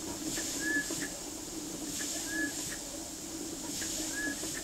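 Model ME beam engine running slowly, with a short high squeak coming round three times, about every 1.7 seconds, over a steady hiss and light mechanical clicking.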